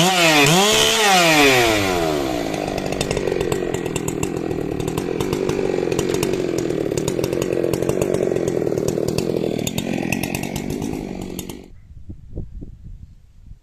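Big 90cc-class professional chainsaw revving up and down about once a second, then pulled to a lower, steady pitch under load as it cuts through wood for about ten seconds. The engine cuts off abruptly near the end, leaving a few faint knocks.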